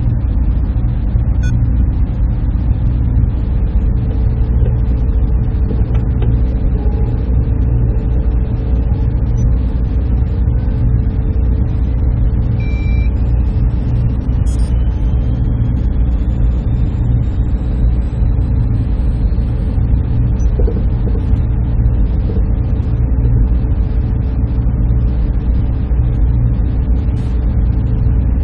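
Server room ambience: the steady drone of cooling fans and air handling, a heavy low rumble with a faint steady hum above it. A few faint brief tones and a faint slowly rising tone come in around the middle.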